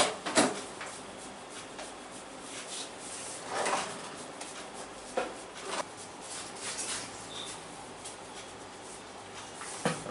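Hands working over a person's head and hair in a massage: short, irregular rubbing and patting strokes a second or more apart, with a longer rub about three and a half seconds in.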